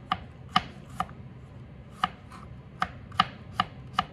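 Kitchen knife chopping peeled garlic cloves on a plastic cutting board: about eight sharp knocks of the blade on the board, unevenly spaced, with a pause of about a second after the third.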